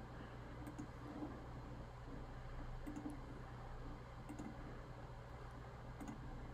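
About four faint computer mouse clicks, a second or two apart, over a low steady room hum.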